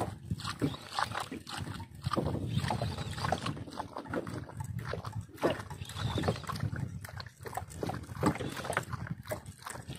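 A hooked fish being fought on a bent jigging rod: irregular clicks and knocks from the reel and tackle over a low, uneven rumble of wind and water.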